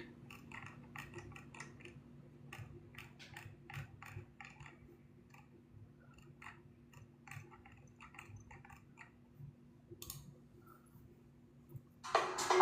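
Faint scattered clicks and light rustling from trading cards and pack wrappers being handled, over a steady low hum. Music comes in loudly near the end.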